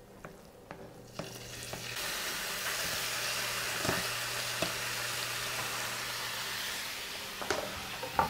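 Diced chicken breast frying in hot coconut oil in a pan: the sizzle swells in a little over a second in and then holds steady, with a few light knocks.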